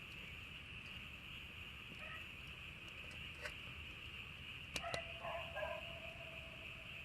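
Campfire burning, with a few faint sharp crackles and pops from the burning wood over a steady high hiss. A short animal call about five seconds in.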